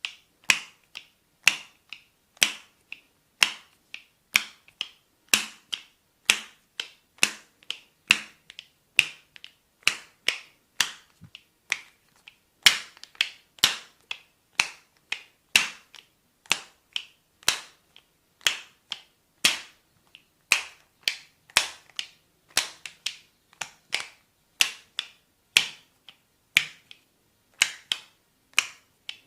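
A steady run of sharp snapping cracks from a barber's percussive back massage, about two a second in an uneven rhythm.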